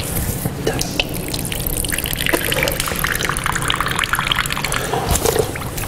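Water from a wall tap running and splashing as it is scooped up in cupped hands and wiped over the face and beard, with repeated small splashes and drips.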